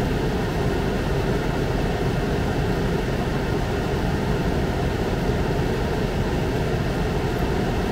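Ninja Speedi multi-cooker running in air-fry mode: its fan blowing with a steady, even rush and hum, nearing the end of the cook.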